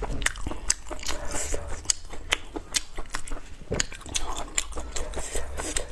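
Close-up mouth sounds of someone chewing a ring-shaped sausage: irregular wet smacks and sharp clicks, a few a second.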